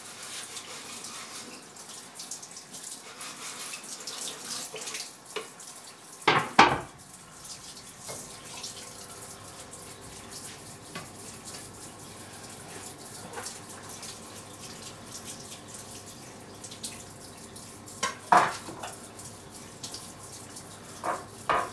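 Kitchen tap running into the sink while hands and utensils are washed, with a few knocks of kitchenware against the sink, the loudest about six seconds in and again near the end.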